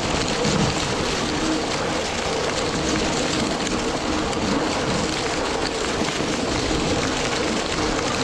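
Steady rushing noise of a fat bike towing a two-roller snow groomer over a snow trail, with a faint steady hum underneath.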